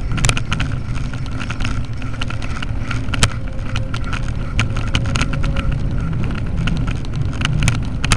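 A bicycle riding over cobblestones and paving, picked up by a bicycle-mounted action camera: a steady low rumble with frequent sharp clicks and rattling knocks.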